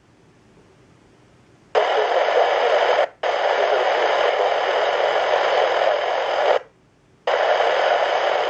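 Handheld airband scanner with its squelch opening on a transmission that carries only loud static hiss and no voice. The hiss starts about two seconds in, drops out for an instant, stops for under a second near the end and comes back.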